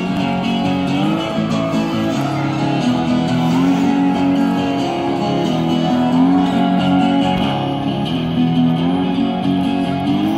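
Busker playing a guitar: a melody of held notes, some of them sliding, over lower notes.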